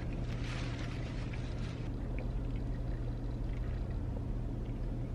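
Steady low hum of a car's running engine heard inside the cabin, with faint rustling in the first second or two.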